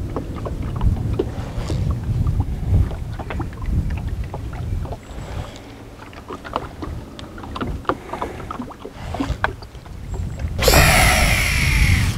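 Low wind rumble on the microphone with scattered small clicks and knocks from the boat. About ten seconds in, a loud whir of about a second and a half, falling in pitch: a fishing reel's spool spinning out line on a cast and slowing.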